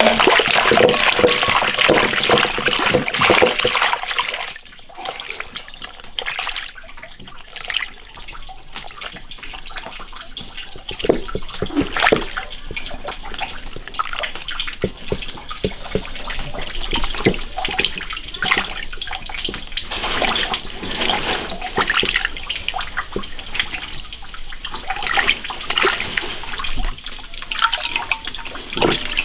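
Water pouring into a basin of chopped wind-dried chicken for the first few seconds. Then hands swish and rub the pieces in the water to wash them, with irregular splashing and sloshing.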